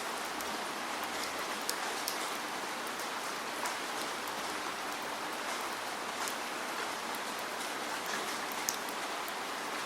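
Steady rain with individual drops ticking sharply on a surface at irregular moments.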